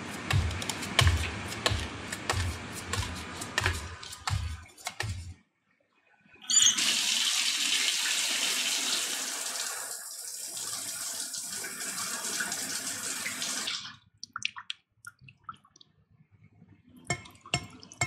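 A run of regular low knocks and clicks, then a shower spray that starts, runs steadily, and cuts off suddenly: the water has stopped without warning. A few scattered drips and ticks follow.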